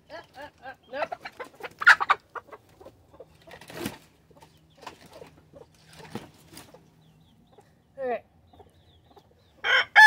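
Backyard chickens clucking in short, scattered calls. Near the end a rooster starts to crow loudly.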